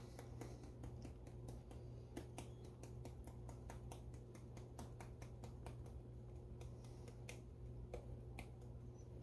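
Small spice jar of paprika being shaken and tapped over fish fillets: a run of faint, irregular clicks and taps from the jar and its sifter cap, several a second.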